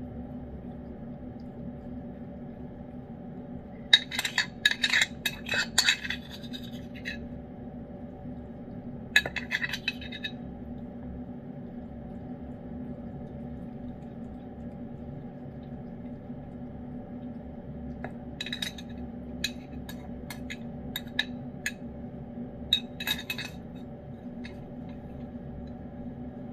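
Metal spoon clinking and scraping against a ceramic dish while scooping wet cat food: a quick run of clinks a few seconds in, another short run about ten seconds in, and scattered single clinks later on, over a steady low hum.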